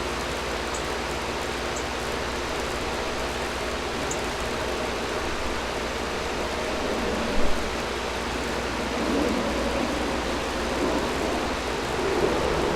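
Air conditioner running, a steady rush of air and fan noise. There is a brief low thump about seven seconds in, and the mid-range of the rush swells unevenly in the last few seconds.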